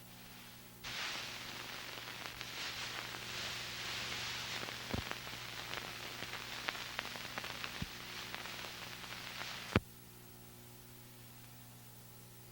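Static hiss on an old recording, a few sharp clicks in it, over a steady low electrical hum; the hiss starts about a second in and cuts off abruptly near the end, leaving only the hum.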